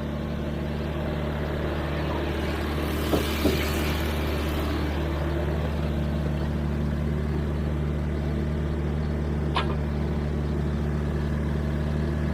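Sany mini excavator's diesel engine running at a steady speed, with two sharp knocks about three seconds in and a single click later on.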